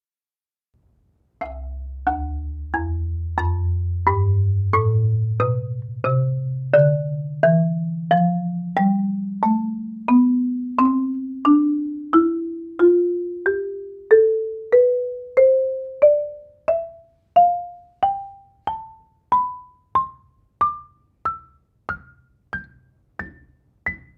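Marimba played one note at a time in a slow ascending scale, starting about a second and a half in and climbing from the lowest bass notes to the top of the range. The low bars ring on long and blend together, while the higher notes are short and die away fast. Raw, unprocessed close-mic'd recording.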